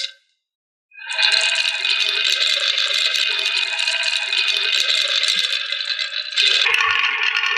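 Many marbles rolling and clattering down a plastic marble-run track, a dense continuous rattle that starts about a second in after a brief silence.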